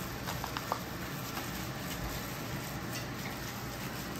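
Steady sizzle of food frying in a pan, with a few light clicks about half a second in.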